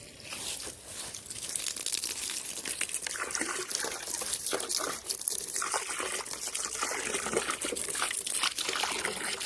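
Water pouring into a bucket as it is refilled, building up over the first two seconds and then running steadily.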